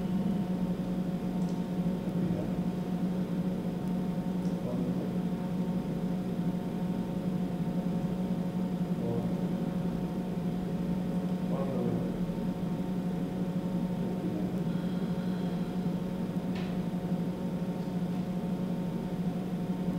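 A steady low hum with a few fainter, higher steady tones above it, unchanging throughout.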